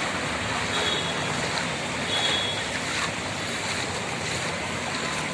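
Steady rush of heavy rain, an even noise with no let-up, with a couple of faint short high tones about one and two seconds in.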